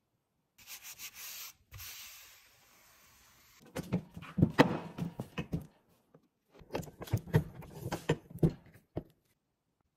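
A soft rubbing noise over leather, then two runs of sharp clunks and knocks from leather-cutting presses, a hand-lever press and a clicker press, working their steel dies through shell cordovan.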